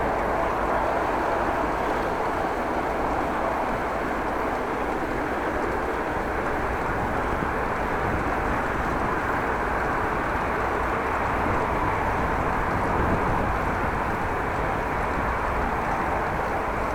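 Steady rushing wind and ride noise on the microphone of a camera carried on a moving bicycle, with a low, unsteady rumble of wind buffeting underneath.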